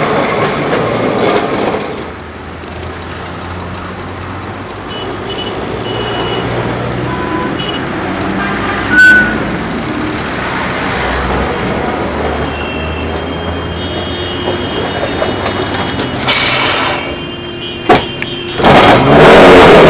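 City street traffic with buses and trucks running. There is a short loud noise about nine seconds in. Over the last few seconds a tram runs past close by on its street rails and gets loud.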